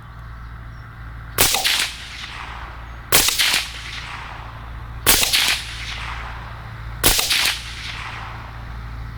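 CMMG Banshee 5.7x28 pistol with a 5-inch barrel firing FN 27-grain rounds: four shots, about two seconds apart, each trailing off over about half a second.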